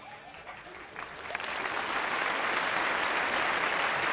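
Audience applauding: the last notes of a song fade out, and about a second in, clapping from a large crowd starts and holds steady.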